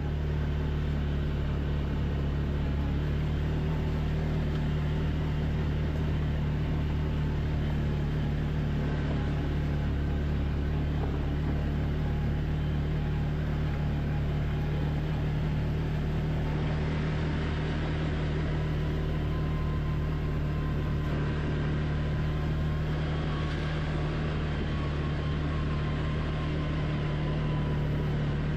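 Quad (ATV) engine running steadily at a constant low speed, a continuous low hum with no revving; a fainter wavering higher engine note comes in about halfway through.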